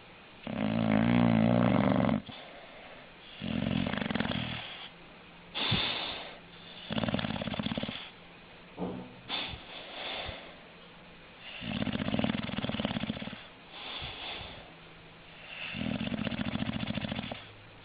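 English bulldog snoring, one snore every two seconds or so, some louder than others, the loudest near the start. Heavy snoring like this is typical of the breed's short, flat-faced airway.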